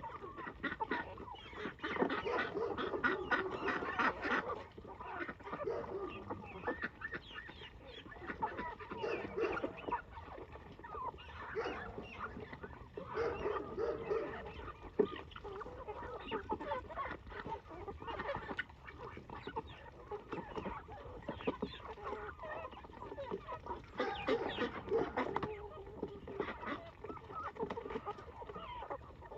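A flock of farmyard poultry calling continuously, many calls overlapping.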